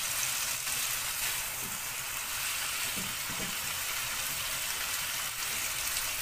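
Chunks of veal, onions and tomatoes sizzling steadily in a nonstick frying pan as the meat sears and browns, turned now and then with a silicone spatula.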